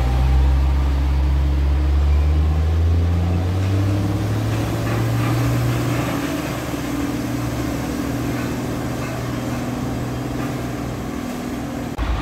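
Isuzu Giga concrete mixer truck's diesel engine pulling away. Its low note rises slightly as it accelerates over the first few seconds, then fades as the truck moves off.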